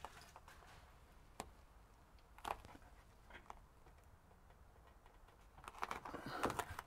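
Faint, scattered taps and rustles of hands pressing a foam insulation liner against a vehicle cab roof, with a busier patch of rustling near the end.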